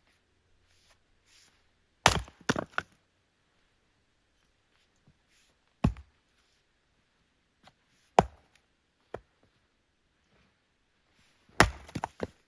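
Axe chopping firewood: four heavy strikes a few seconds apart. The first and last are each followed by a couple of quick cracking knocks as the wood splits.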